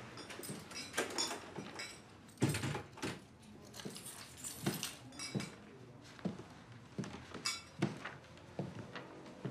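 Keys and handling noises as someone comes in through an apartment's front door, with a sharp thump about two and a half seconds in as the door shuts. Then scattered footsteps and the rustle of paper letters being handled.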